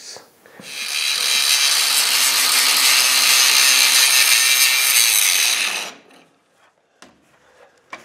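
Angle grinder grinding a cracked weld on the steel frame of a Hesston 4790 baler, cutting a V groove to prepare it for re-welding. The steady grinding starts just after the beginning and stops abruptly about three-quarters of the way through, followed by a couple of faint clicks.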